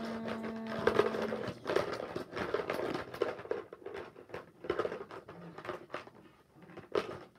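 Hand rummaging through the contents of a plastic pumpkin bucket: irregular rattling clicks and crinkling. A steady held hum sounds for about the first second and a half.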